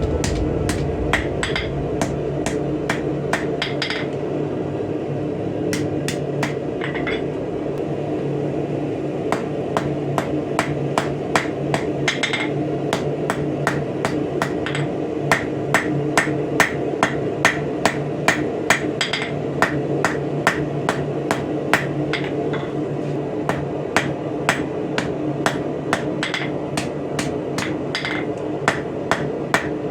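Hand hammer striking hot steel on an anvil in a steady forging rhythm, about two blows a second with short pauses, over a steady hum.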